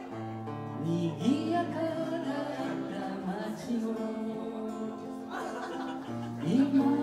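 Man singing a folk song to his own strummed acoustic guitar, his voice rising into long held notes about a second in and again near the end.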